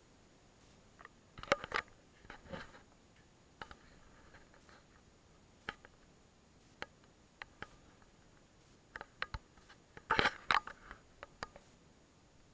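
Scattered short clicks and scuffs of handling and movement in a quiet garage, in small clusters about a second and a half in and again around ten seconds, loudest near ten seconds; the Aprilia RS 125's engine is not running.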